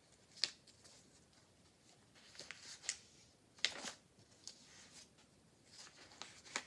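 Pages of a communication book being handled and turned: about four short papery rustles and taps spread across several seconds.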